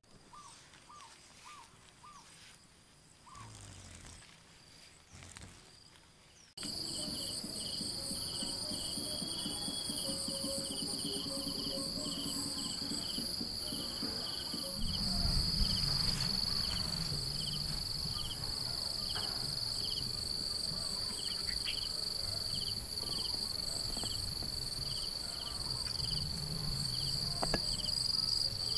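Insects calling: a steady high-pitched trill with short chirps repeating about two to three times a second, starting abruptly about six and a half seconds in after a quiet opening with a few faint chirps. A low rumble joins about halfway through.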